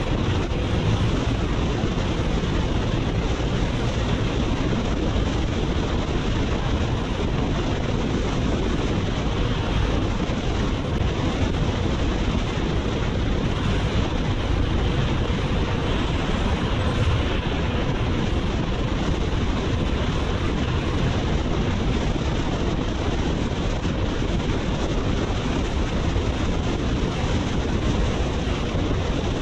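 Steady wind rush over the microphone of a BMW R nineT motorcycle riding at freeway speed, with engine and road noise mixed in beneath it.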